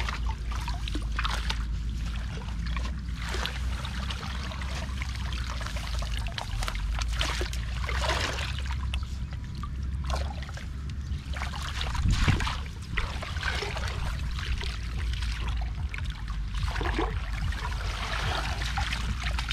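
Muddy water sloshing and splashing in irregular bursts as hands and a woven bamboo basket scoop through a shallow puddle, with one louder splash about twelve seconds in. A steady low rumble runs underneath.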